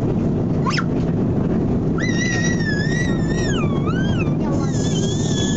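Steady airliner cabin drone, with a small child's high-pitched wordless squeals over it: a short rising squeak just under a second in, then long wavering squeals from about two seconds on and again near the end.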